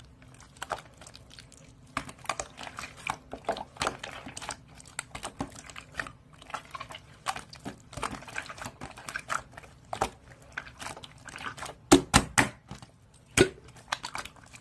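Irregular small clicks, taps and crackles, close and fairly quiet, with a few sharper clicks near the end.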